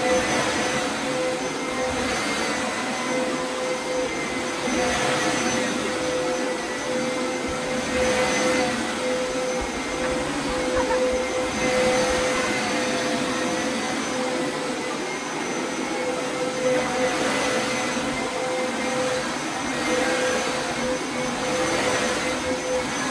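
Hoover upright carpet cleaner running steadily while shampooing carpet: a continuous motor and suction drone with a steady tone, swelling every few seconds.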